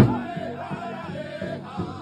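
Powwow drum group singing together over a large shared powwow drum struck with padded sticks: a hard stroke at the start, then lighter strokes about three a second under the gliding vocal line.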